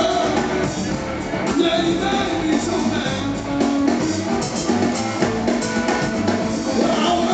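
Live blues-rock band playing: electric guitar, electric bass and drum kit, amplified through the stage PA.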